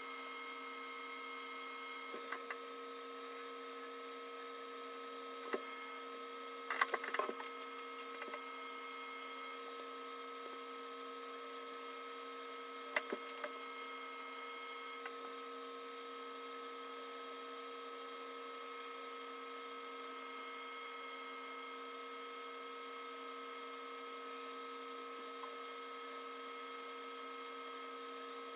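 A few small clicks and taps of a paintbrush working acrylic paint on a palette, loudest in a short cluster about seven seconds in, over a steady hum made of several held tones.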